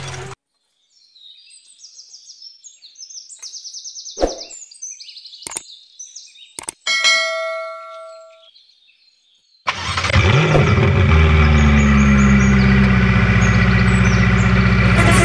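Birds chirping in short high repeated calls, then a few clicks and a bell-like ding from a subscribe-button animation about seven seconds in. From about ten seconds a loud, steady truck engine sound starts, rising briefly as it begins.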